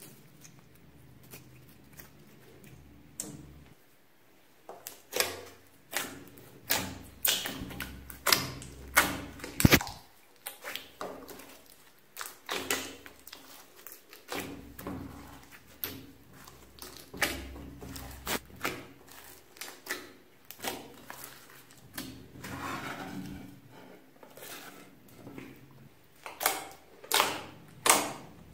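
Hands kneading, stretching and poking glossy slime. The slime gives off irregular sticky clicks and air-bubble pops, a few a second. These begin about four seconds in and grow louder and closer together near the end.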